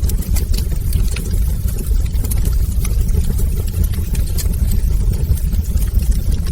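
Wood fire in a fireplace crackling, with frequent small sharp pops over a steady low rumble.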